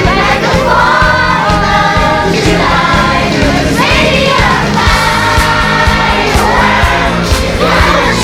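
A group of young children singing together over a pop backing track with a steady beat.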